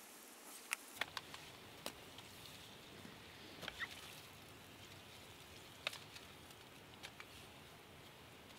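Faint, irregular clicks and crackles over a steady low hiss, a dozen or so spread unevenly, the sharpest about a second in and near the middle.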